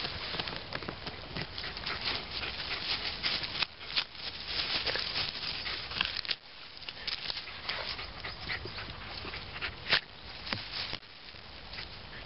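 Wire-haired dachshund digging and snuffling at a hole in soil and leaf litter: paws scrabbling in the earth, rustling leaves and many short clicks and snaps of twigs.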